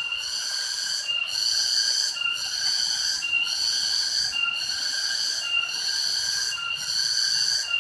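Loud rhythmic animal call, a shrill pulsing note repeating steadily about once a second.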